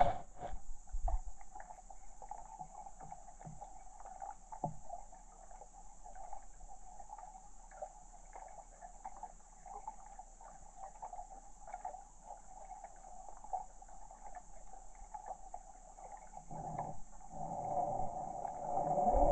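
A faint, steady chorus of calling animals, unbroken throughout, over a thin high hiss, with a few soft knocks. A louder low rumble builds near the end.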